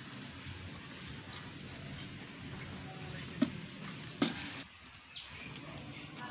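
Water dripping and trickling from a pipe into a koi pond, a steady watery patter, with two sharper drip or splash taps about three and a half and four seconds in.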